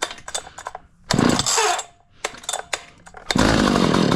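Two pulls on the starter cord of a 1980 Stihl 031 AV two-stroke chainsaw on choke, the engine turning over with each pull, after a few small clicks of handling the saw; this is a cold start.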